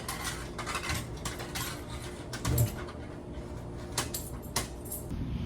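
Light clicks and clatters of small hard objects being handled, with a heavier knock about two and a half seconds in, over the steady low hum of the ferry underway.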